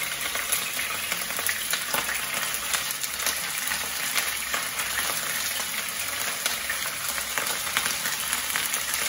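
Hairtail pieces shallow-frying in hot oil in a pan: a steady sizzle with constant fine crackling spatters.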